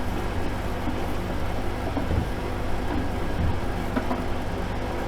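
Washing machine running with a steady low motor hum, and a couple of soft low thuds partway through.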